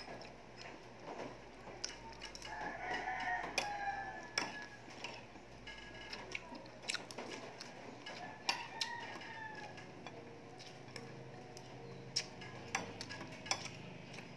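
A rooster crowing in the background, twice, each call long and wavering. Short sharp clicks of eating by hand, biting and chewing dried fish, fall between the calls.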